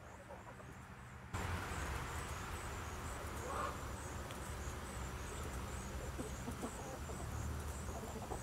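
Chickens in an outdoor run clucking softly now and then, under a steady, rapidly repeating high chirping. The background level jumps abruptly a little over a second in.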